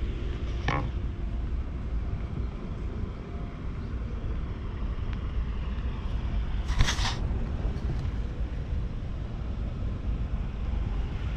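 Wind buffeting the microphone, a steady low rumble, with a faint short sharp noise under a second in and a louder one about seven seconds in.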